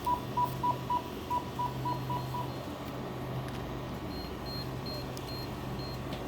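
Checkout terminal keypad beeping: short beeps in quick, uneven succession as keys are pressed. From about two seconds in, a fainter run of higher, evenly spaced beeps follows, about two and a half a second, over a steady low hum.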